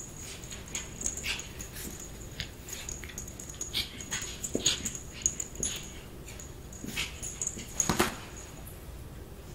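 Pug puppy snuffling and wheezing as it plays, with a short thud about eight seconds in as it dives into its padded dog bed.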